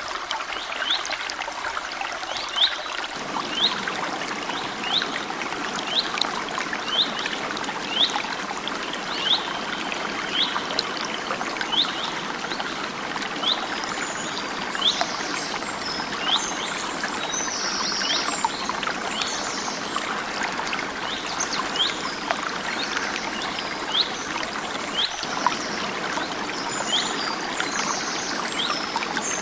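Small stream trickling and splashing over stones, a steady rush. Over it one bird repeats a short high chirp about once a second, and from about halfway a second bird adds busier, higher twittering.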